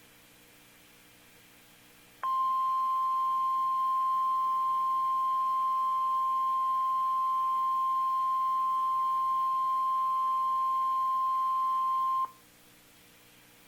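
NOAA Weather Radio 1050 Hz warning alarm tone: one steady, high-pitched beep that starts about two seconds in and holds for about ten seconds before cutting off, signalling that a warning message follows. Faint radio hiss before and after.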